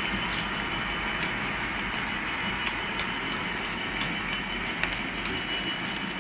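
OO gauge model freight wagons rolling along the track: a steady rumble of wheels on rail with scattered light clicks as the wheels cross rail joints.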